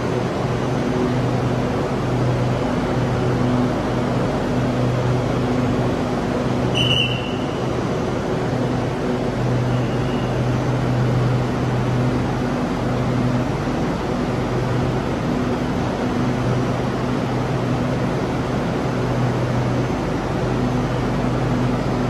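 SRT Red Line electric commuter train standing at the platform, its air-conditioning and onboard equipment giving a steady rushing hum with a low drone that swells and fades every second or two. A short high beep sounds about seven seconds in.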